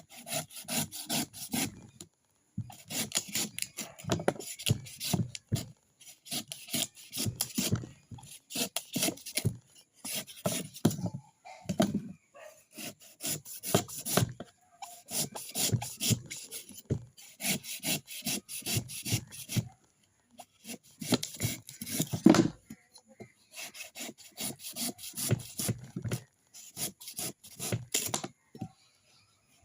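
Coconut being scraped by hand: quick rasping strokes, several a second, in runs of a few seconds with short pauses between.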